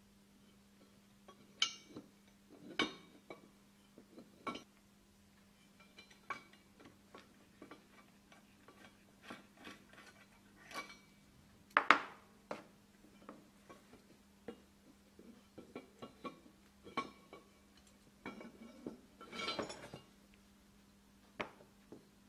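Metal compressor parts being handled on a workbench: scattered clinks and knocks as the piston and connecting-rod assembly is worked out of the aluminium cylinder and a bolt is set down, the sharpest knock about halfway through and a busier run of clatter near the end.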